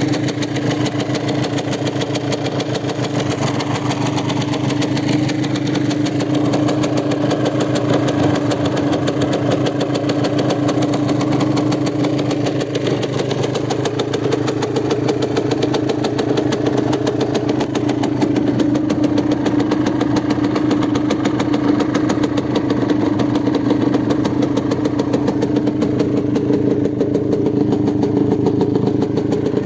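Yamaha DT200WR's single-cylinder two-stroke engine idling steadily through an RSV expansion chamber and aftermarket silencer.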